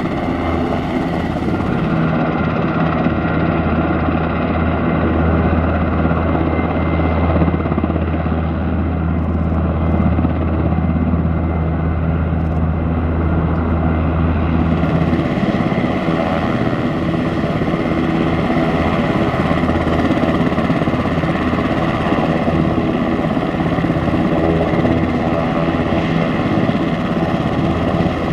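Sikorsky CH-148 Cyclone helicopter running on the ground with its twin turboshaft engines and main and tail rotors turning: a steady, loud turbine-and-rotor din. A deep hum is strong in the first half and changes about fifteen seconds in.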